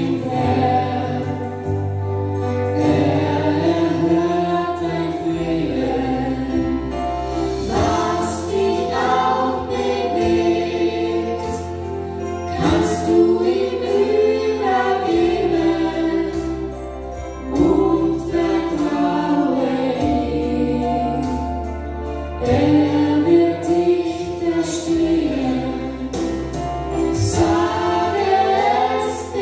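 A mixed group of men's, women's and children's voices singing a Christian worship song in German in harmony, over an accompaniment of bass notes held a couple of seconds each.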